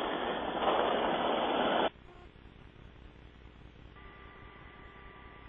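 Rushing hiss over a helicopter crew's intercom as a microphone is held open with no one speaking, cutting off abruptly about two seconds in. A faint low hiss follows, with two faint steady tones joining near the end.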